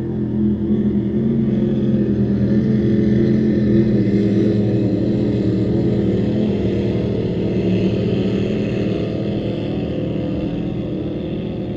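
Racing powerboats' engines running at speed, a steady drone that builds to its loudest about four seconds in, then slowly fades as the boats move away.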